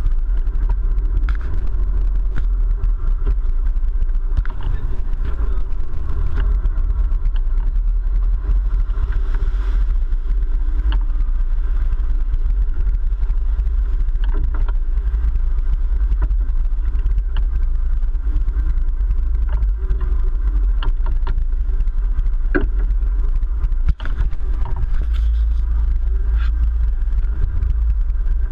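Sportfishing boat's engines running steadily under heavy wind rumble on the microphone, with a few light knocks from the cockpit.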